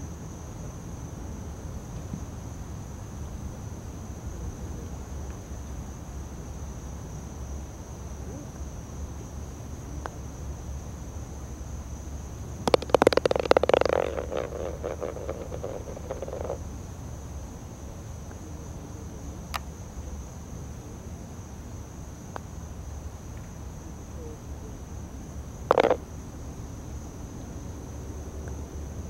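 Insects trilling steadily at a high, even pitch over a low outdoor rumble. About halfway through, a loud rattle rings on for a few seconds, and a single sharp knock comes near the end.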